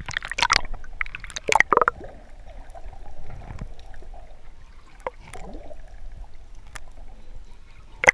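Sea water splashing and gurgling over a camera as it is plunged underwater, loudest in the first two seconds. Then a muffled underwater wash with a few sharp clicks.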